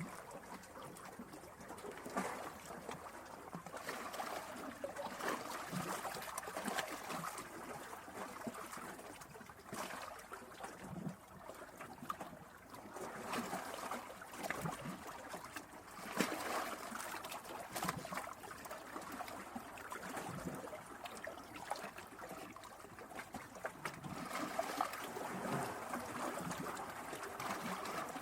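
Sea waves crashing into rocks and splashing: a steady wash of water that swells unevenly every few seconds, broken by many short, sharp splashes.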